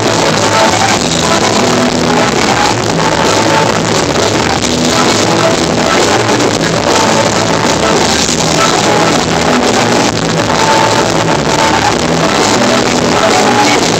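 Live band playing a huapango, a button accordion carrying the melody over strummed guitar and drums.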